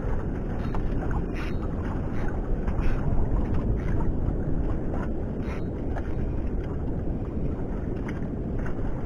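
Wind buffeting the microphone over choppy sea, a steady low rumble, with short faint taps roughly once a second at uneven spacing.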